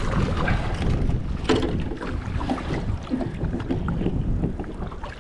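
Wind buffeting the microphone on a small boat, with water lapping against the hull and a few sharp knocks, the loudest about a second and a half in.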